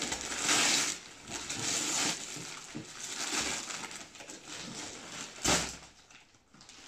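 Gift-wrapping paper being torn and crumpled off a cardboard box, in several rustling tears, with a short sharp rip about five and a half seconds in.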